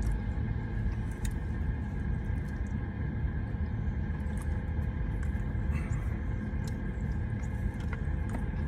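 Car idling, heard from inside the cabin as a steady low rumble with a steady hum, with a few faint clicks of takeout containers being handled.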